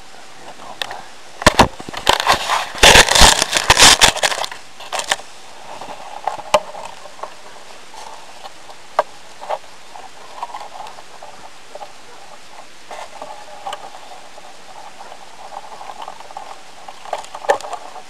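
Hands handling and arming a small spring-loaded bow-net bird trap close to the microphone: a loud burst of crackling and rustling a couple of seconds in, then scattered sharp clicks and knocks from the wire frame and net.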